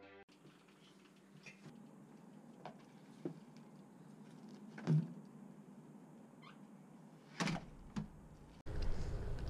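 A few knocks and clunks as a BMX bike is carried out through a door and set down on a concrete step, the loudest about halfway through, with a couple of short squeaks. Near the end a steady low rushing noise starts suddenly.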